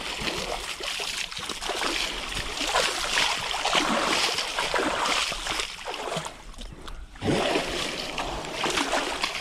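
Water scooped by hand and splashed over an elephant lying in a shallow river: repeated, irregular splashing and sloshing.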